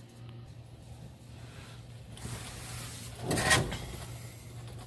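Handling noise as the camera is moved: rustling and scraping that grows from about two seconds in and is loudest at about three and a half seconds, over a steady low hum.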